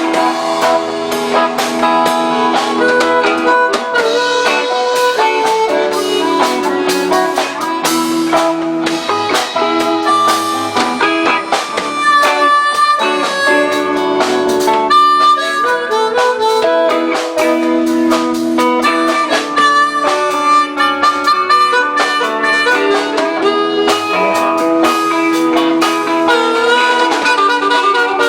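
Band playing a blues-rock tune, with a harmonica taking a solo of sustained, bending notes over guitar accompaniment.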